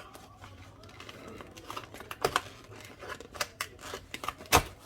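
Irregular clicks, taps and rustles of objects being handled, with one louder knock near the end.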